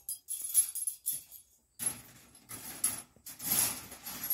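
Wire mesh top panel of a guinea pig cage rattling and clinking as it is handled and fitted onto the cage: light metallic clinks at first, then fuller rattling and rubbing from about halfway through.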